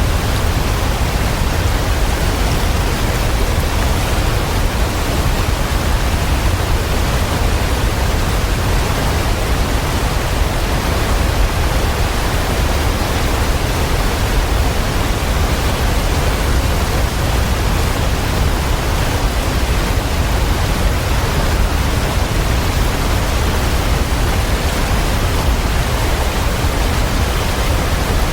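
Waterfall: a steady, unbroken rush of falling water, heaviest in the deep low end.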